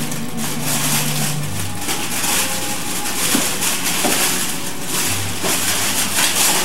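Shiny foil wrapping paper crinkling and rustling as it is torn off a present.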